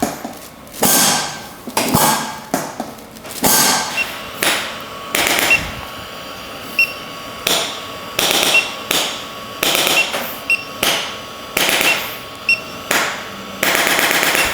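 A long run of sharp percussive strikes, more than twenty of them, irregularly spaced about half a second to a second apart, with a longer burst near the end.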